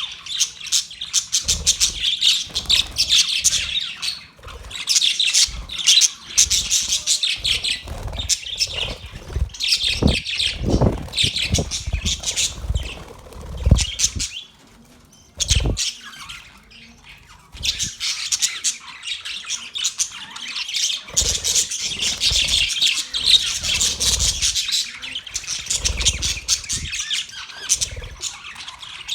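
Budgerigars chattering and warbling: a dense run of rapid, high chirps and squawks, with a lull of a few seconds about halfway through. A few low thumps can be heard in the middle.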